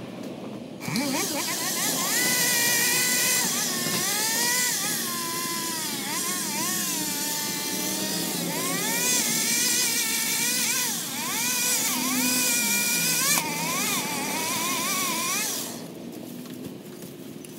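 Pole saw running as it cuts tree branches, its motor pitch wavering up and down under load. It starts suddenly about a second in and cuts off near the end.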